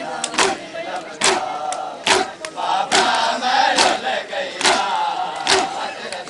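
A crowd of men doing matam, beating their chests in unison: one sharp massed slap a little under every second, with men chanting a noha between the slaps.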